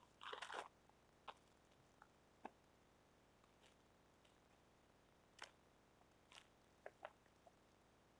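Mostly near silence. There is a brief rustle of packaging at the start, then a handful of faint, separate clicks and taps from handling a small metal keychain torch.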